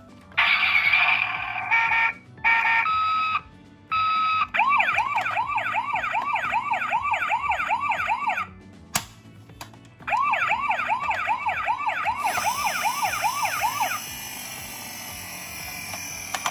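Toy ambulance minicar's electronic siren sounding a fast rising yelp, about three sweeps a second, in two runs with a pause of over a second between them. It follows a few short bursts of other electronic toy sound.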